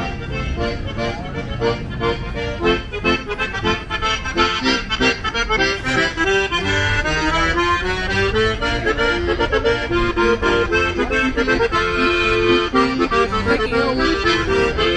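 Piano accordion playing a tune live: a melody over held chords, with a steady rhythmic pulse.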